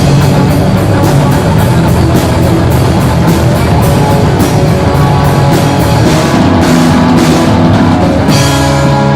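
Live rock band playing an instrumental passage: two guitars, bass guitar and drum kit, with steady, regular cymbal and drum hits over held guitar and bass notes.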